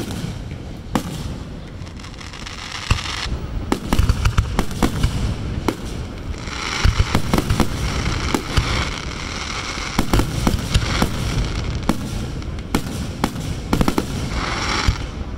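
Aerial firework shells bursting one after another, sharp bangs coming in quick clusters, with a dense high hiss of crackle about halfway through and again near the end.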